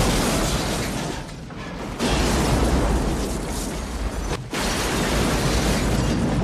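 Film soundtrack of a huge high-explosive blast tearing apart a ship at a pier: a continuous deep explosion rumble full of debris. Fresh blasts burst in about two seconds in and again at about four and a half seconds.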